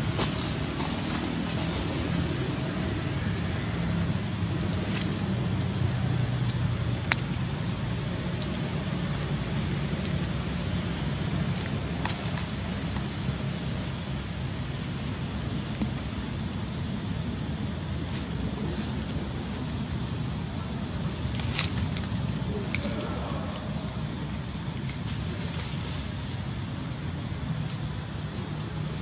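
Steady high-pitched drone of an insect chorus that swells slightly a few times, over a low background rumble, with a few faint ticks.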